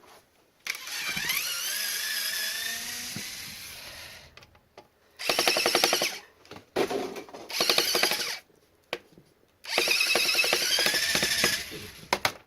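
Power drill-driver running in a series of bursts on a stubborn screw. The first run lasts about three seconds, with a rising whine that fades out. It is followed by four shorter trigger pulls, each spinning up in pitch.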